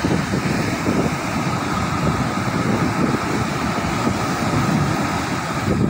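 Wind buffeting the phone's microphone in a heavy, uneven rumble over the steady rush of ocean surf breaking on the beach.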